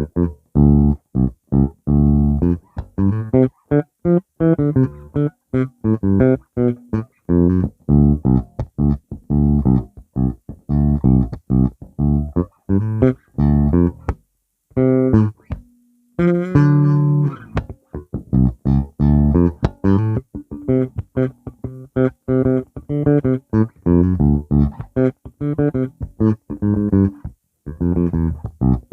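Fender Player Plus Meteora electric bass played with both pickups on, through an iRig interface: a fast run of short, clipped plucked notes and riffs. The playing pauses briefly about halfway through, with one faint held note, then picks up again.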